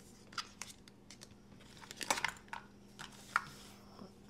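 Scattered light clicks and taps of hands handling a hard knife sheath and its belt-clip screws, with a quick cluster of rattles about two seconds in, the loudest of them.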